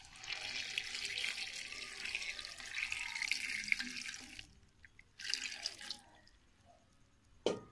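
Water pouring in a steady stream from a jug into an aluminium cooking pot, splashing onto the raw meat, vegetables and spices piled inside. The pour stops after about four and a half seconds, a shorter splash follows about a second later, and a single sharp knock comes near the end.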